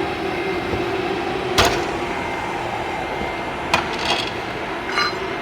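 Four short, sharp clicks and knocks over a steady background hum; the last click rings briefly.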